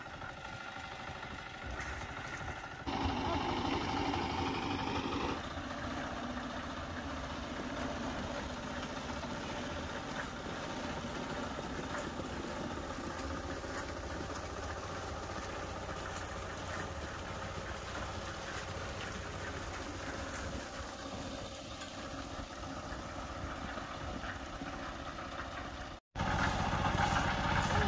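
Small petrol engine of a portable drum concrete mixer running steadily. It is louder for a couple of seconds early on, cuts out briefly near the end, and comes back louder.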